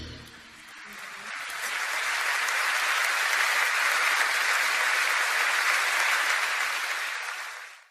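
Audience applauding, building up over the first couple of seconds, holding steady, then fading out near the end.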